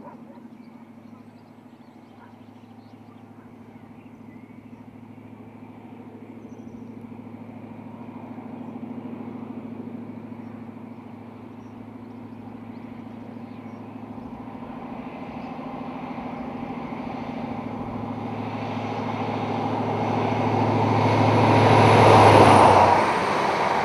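InterCity 125 High Speed Train's Class 43 diesel power car approaching at speed, its steady engine note growing louder until it passes close by about 22 seconds in. It then gives way to the rush of the passing coaches.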